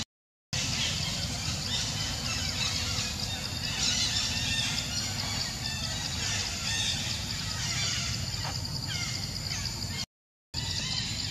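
Outdoor ambience of many birds chirping and calling over a steady high insect drone and a low rumble. The sound cuts out for about half a second at the very start and again near the end.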